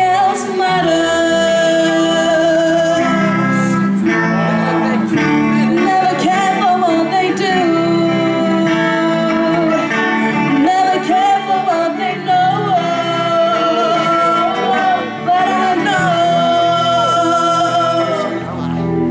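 Live band music: a female vocalist singing a melody into a microphone over electric guitar accompaniment.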